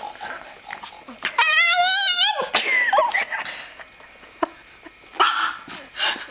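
Chihuahua whining in one long, wavering, high note of about a second, then giving several short yips and barks.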